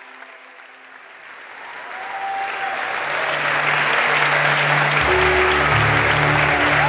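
Worship congregation applauding and cheering, fading in and growing louder. Held low instrumental notes enter about three seconds in, and a deeper bass note joins about two seconds later.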